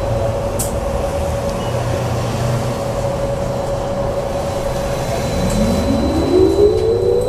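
Inside a BKM 43300D trolleybus: a steady whine hums over low running rumble. About five seconds in, the electric traction motor's whine starts rising in pitch as the trolleybus accelerates.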